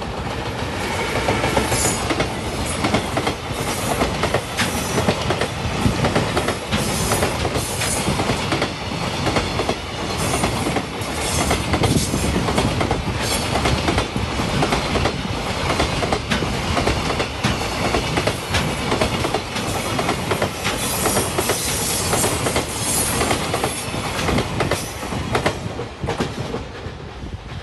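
A JR Freight EF210 'Momotaro' electric locomotive hauling a long train of container wagons passes without stopping, its wheels clattering steadily over the rail joints. The sound fades near the end as the last wagon goes by.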